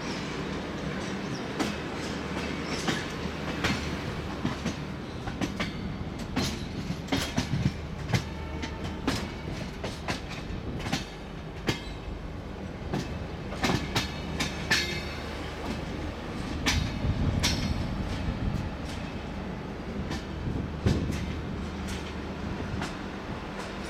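Wheels of a moving passenger train's LHB coaches, heard from aboard, clattering over rail joints and yard pointwork: a steady rumble with many irregular clicks and knocks, swelling to a louder rumble about two-thirds of the way through.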